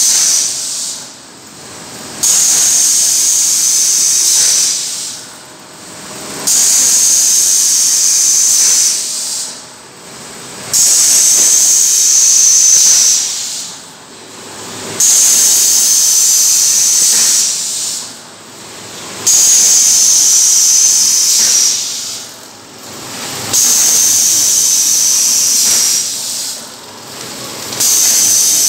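Automatic PP woven-sack cutting machine running in a repeating cycle: a loud hiss lasts two to three seconds and comes back about every four seconds, with a quieter gap between each.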